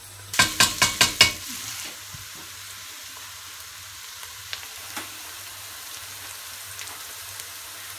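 Diced onions frying in a large pan, a steady sizzle. About five quick, loud scraping strokes of stirring come in the first second or so.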